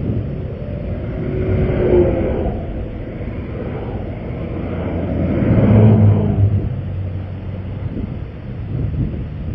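Interstate traffic passing over a steady low rumble, with two vehicles swelling louder about two seconds and six seconds in, the second the louder.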